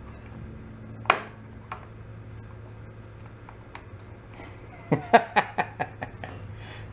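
Sharp metallic clicks and knocks from working a tiller wheel back onto its axle: one sharp click about a second in, a few faint ticks, then a quick run of about eight clicks near the end.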